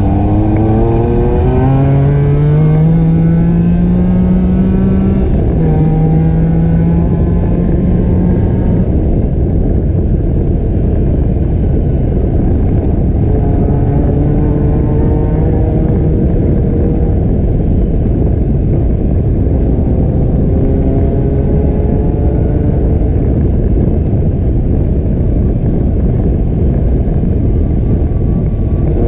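ATV engine accelerating on the trail, its pitch climbing over the first five seconds, dipping briefly at a shift about five seconds in, then holding steady. Later it rises again twice, more faintly, under a steady rushing noise.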